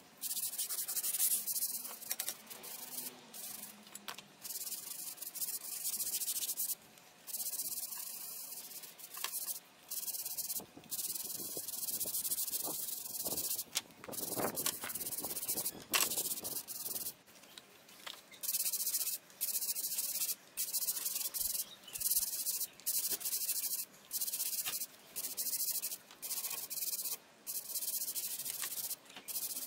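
A scrub brush scrubbing wet cast iron bench frames with soapy water, in repeated back-and-forth strokes with short pauses between them, cleaning off dirt and rust.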